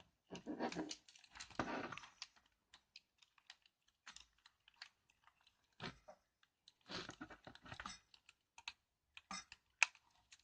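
Scattered light clicks and short scraping, rustling bursts of hands and tools working on a mechanical keyboard while desoldering and pulling out its LEDs. The handling is busiest for the first two seconds or so and again about seven to eight seconds in.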